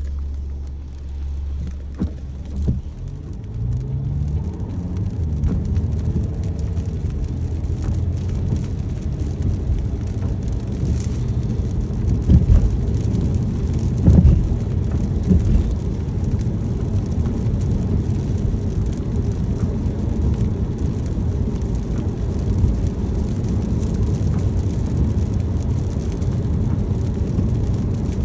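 Car engine idling, then pulling away about three seconds in with a rising engine note, settling into a steady low road rumble as the car drives on, with rain ticking on the car.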